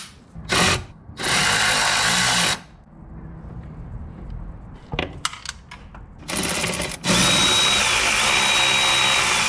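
Cordless power tool running nuts on the brake booster and master cylinder, in bursts: a brief spin, a run of about a second and a half, another brief spin, then a steady run of about two and a half seconds.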